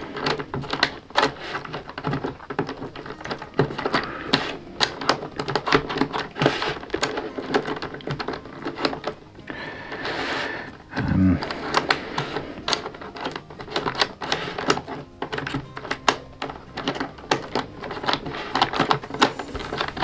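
Wooden puzzle box with metal pins being handled: many small, irregular clicks and taps of wood and metal parts as fingers slide and turn its pieces. A short low hum about eleven seconds in.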